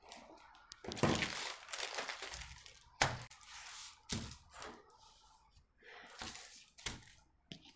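Thin paper pattern sheets rustling and crinkling as they are moved and smoothed flat by hand, with a few sharp clicks, the clearest about three seconds in.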